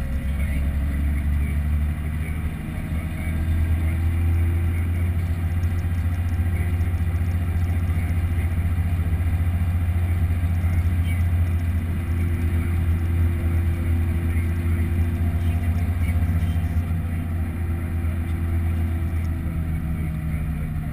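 JCB Fastrac 1135 tractor's diesel engine running steadily under way: a heavy low drone that grows louder about three seconds in and eases slightly near the end.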